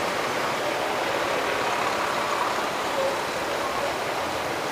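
Steady street traffic noise around a motor scooter halted among cars, picked up by a helmet-mounted action camera.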